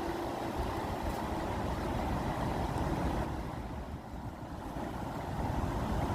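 Steady rushing of running water, easing briefly around the middle before it builds again.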